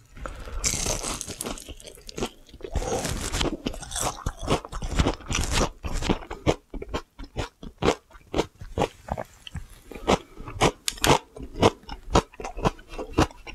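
Close-up crunching and chewing of crisp pan-fried oyster and chive pancakes (gul-buchu-jeon). Dense crunching at the first bites gives way to a steady chewing rhythm of about two crunches a second.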